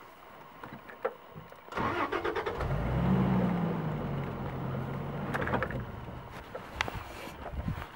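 A safari vehicle's engine starting up about two seconds in, then running at a steady low idle.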